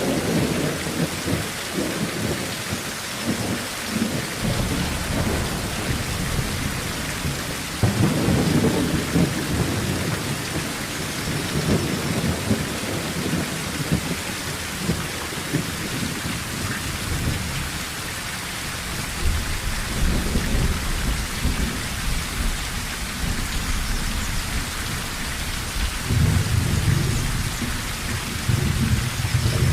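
Steady rain on a tin roof with low rolls of thunder coming and going. The strongest rumbles come about eight seconds in and near the end.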